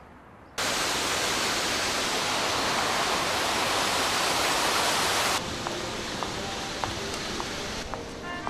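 Indoor fountain splashing, a steady rush of falling water that starts suddenly about half a second in and cuts off after about five seconds. A quieter background hum follows, with a few faint footstep clicks.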